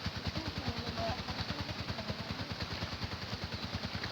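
A small engine running steadily, with an even low chugging of about nine beats a second.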